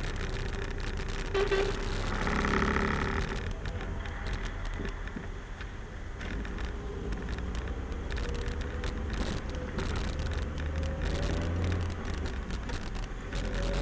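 Steady low engine and road rumble of the vehicle carrying the dashcam, heard from inside its cab as it drives slowly in convoy. A vehicle horn sounds briefly about two seconds in.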